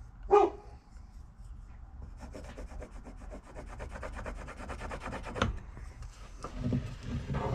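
Pencil scratching across the end grain of a cherry handle blank, drawn corner to corner along a metal square to mark its center: a fast run of short strokes lasting about three seconds, ending in a click.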